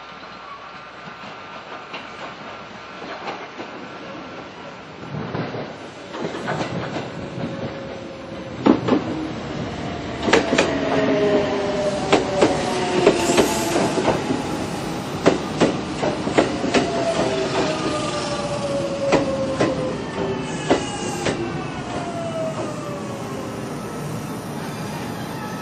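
Kintetsu electric commuter train pulling into a station. Loud wheel clicks over the rail joints, and several whining tones that fall in pitch as it slows.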